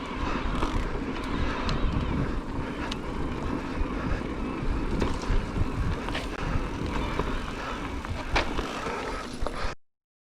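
Cube Stereo Hybrid e-mountain bike rolling down a bike-park trail: tyres rumbling over dirt and stones, with many small clicks and knocks from the bike, and wind on the microphone. It cuts off suddenly near the end.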